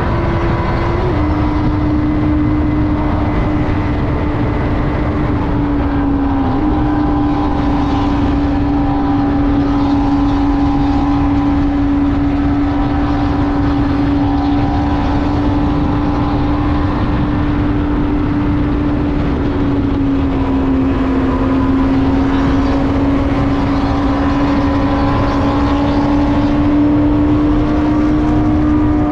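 Benelli TNT600i's inline-four engine running at a steady cruising speed, its note holding level with a few small dips in pitch, over loud wind and road rumble.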